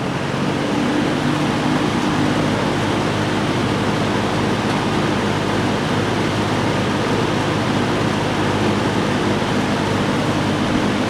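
1974 Lakewood P23 20-inch box fan with aluminum blade and McMillan motor running on high speed: a steady rush of air with a low hum, its pitch rising briefly in the first second as it comes up to speed, then holding steady.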